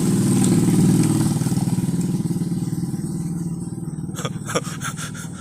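Brick-making machine's engine running with a rapid, even firing beat, gradually getting quieter; a brief voice sounds about four seconds in.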